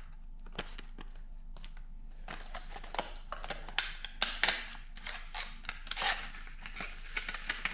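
A clear plastic squid-jig packet being handled and opened by hand: irregular crinkling and clicking of stiff plastic, with a few louder snaps.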